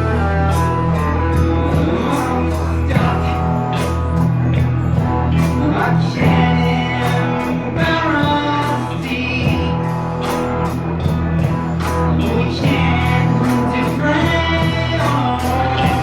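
Rock song with singing over guitar, bass and a steady drum beat.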